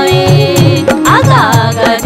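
Chhattisgarhi folk song music: a steady drum beat under a wavering melody line.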